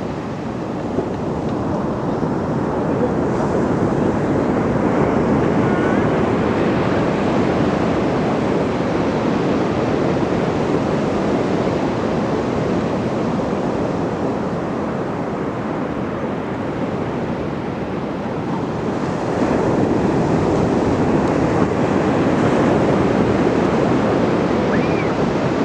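Ocean surf breaking on the shore: a continuous wash of waves that swells louder about a quarter of the way in and again in the last third.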